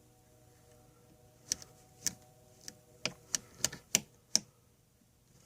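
Switches and selector knobs on a Hickok 539A tube tester clicking as they are worked: about eight sharp, irregular clicks over some three seconds, over a faint steady hum.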